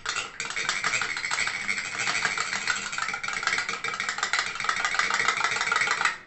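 A metal spoon beating raw eggs with salt in a stainless-steel bowl: a rapid, steady clatter of the spoon against the bowl that stops near the end.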